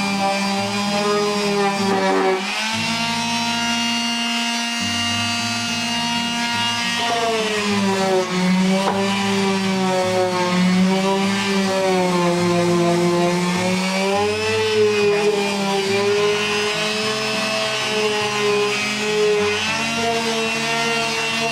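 Electric palm sander running against the wooden walls of a birdhouse. It gives a steady hum whose pitch wavers up and down throughout.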